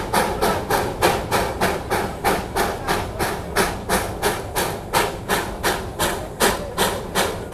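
Darjeeling Himalayan Railway steam locomotive chuffing under load, its exhaust beats coming evenly at about three a second over a steady low rumble.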